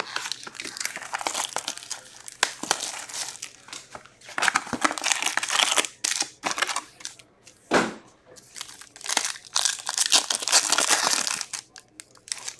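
Plastic wrap and packaging crinkling as a sealed hockey card box is slit open with a box cutter and opened, then a foil card pack crinkles and tears as it is ripped open. One sharp click a little past the middle.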